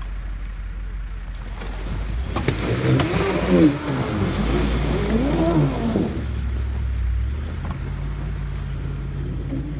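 Land Rover Discovery's engine revving up and down several times under load as it climbs out of icy water up a snowy bank, with a noisy wash of tyres churning water and slush. After about six seconds the revs settle to a steadier low running.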